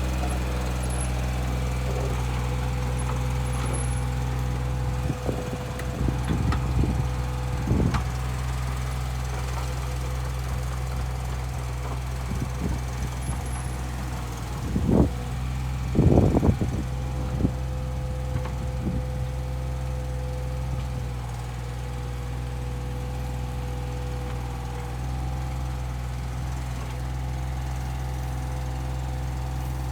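Komatsu PC15-3 mini excavator's diesel engine running steadily under a digging test, with a steady whine over the engine. Several sharp clanks and knocks come about five to eight seconds in and again around fifteen to seventeen seconds, the loudest near sixteen seconds.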